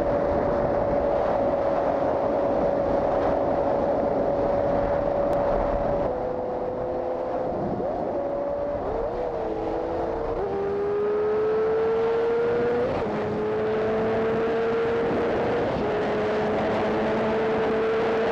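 2007 Yamaha YZF-R6's inline-four engine pulling hard at high revs, with wind rushing over the microphone. Its pitch steps down about six seconds in and again about thirteen seconds in as it shifts up, and climbs steadily between.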